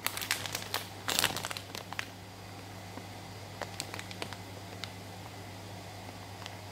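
Plastic bag of chicken nuggets crinkling as it is handled: a dense run of crinkles in the first two seconds, then a few scattered crackles, over a steady low hum.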